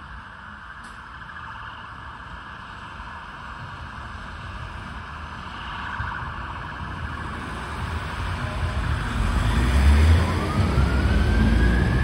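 Emergency vehicle sirens over road traffic, with one siren sweeping up and back down near the end. A low engine rumble grows louder over the last few seconds.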